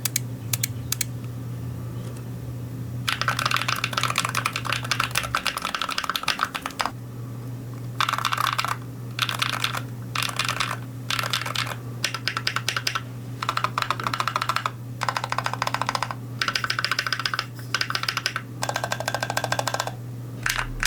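Typing on a custom 65% magnetic keyboard: Gateron Jade Ruby magnetic switches on a Mchose Ace68 board in an aluminium case. The keys clack in quick runs, with a few scattered presses at first, a long run about three seconds in, then a string of short bursts with pauses between.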